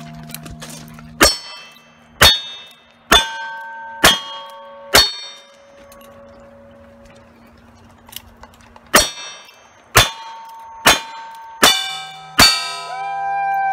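Single-action revolver shots at steel plate targets: two strings of five, about one a second, with a pause of about four seconds between them. Each shot is followed by the clang of the struck steel plate ringing on.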